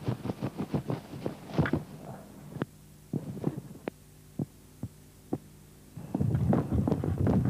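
Irregular knocks and thumps over a low steady hum: quick clusters at first, a few scattered single knocks in the middle, and a dense run of thumps again from about six seconds in.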